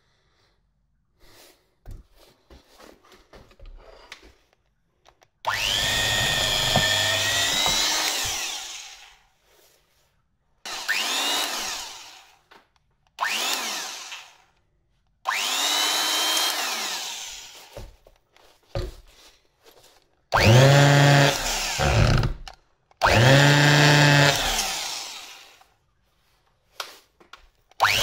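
Freshly restored vintage Metabo electric drill running in about six short bursts. Each time it is switched on, the motor whines up to speed, and it winds down when released. A few light handling clicks come before the first run.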